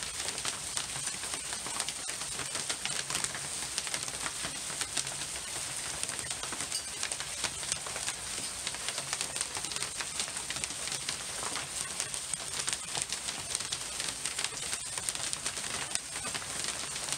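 Hail falling steadily on a gravel yard: a dense crackle of small impacts over a constant high hiss.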